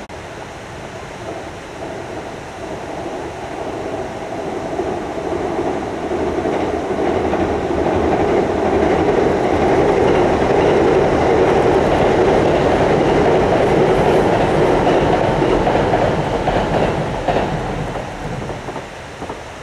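Electric passenger train crossing a steel girder railway bridge: the rumble and clatter of wheels over the rails build up, stay loud for several seconds in the middle, then fade away as it passes.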